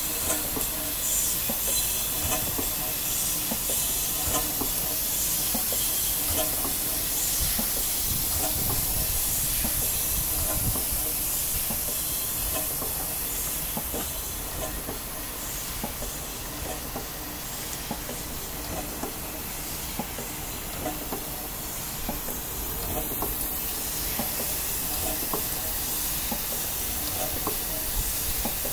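A reversible steam engine running on compressed air: a steady hiss of exhausting air with regular pulses from the cylinders and light clicks from the valve gear.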